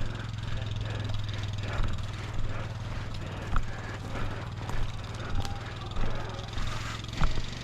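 Footsteps of a person walking at a steady pace, a soft thump about every half second, over a steady low hum.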